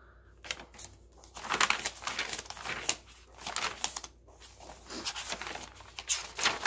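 Paper pages of a handmade journal being handled and turned, rustling and crinkling in several bursts.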